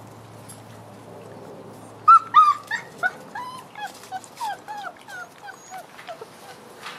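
A six-week-old puppy whimpering: a run of short, high whines and yips, several a second, starting about two seconds in, loudest at first and trailing off.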